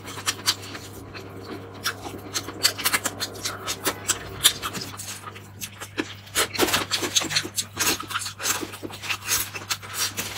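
Close-miked eating sounds: roast chicken pulled apart by hand, then bitten and chewed, with many short wet mouth clicks and smacks. A low steady hum runs underneath.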